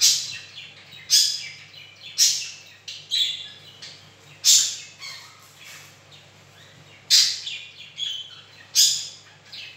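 A bird chirping repeatedly: sharp, high-pitched calls that come about every one to two seconds, each fading quickly.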